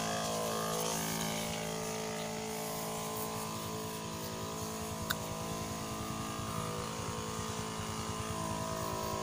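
Backpack power sprayer's motor running with a steady hum.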